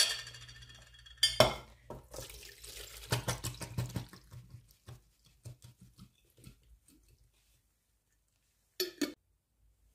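Sour cherries and their juice poured from a glass jar into a plastic sieve over a metal bowl: a ringing clink of the jar at the start and a sharp knock about a second and a half in, then a couple of seconds of pouring and splashing liquid that thins into dripping. A short knock near the end.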